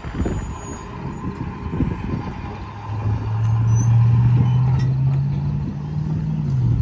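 Road-vehicle engine, likely a truck, running up and getting louder from about three seconds in, its pitch edging up and then dropping near the end, over an uneven low rumble.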